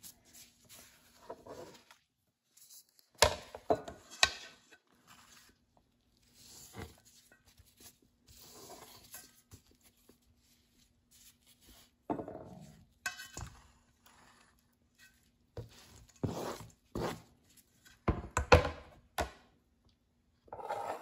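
Scattered knocks and clatters as chopped garlic, ginger and black fungus are tipped and scraped off a plastic cutting board into a stainless-steel bowl of raw spare ribs, with quiet gaps between.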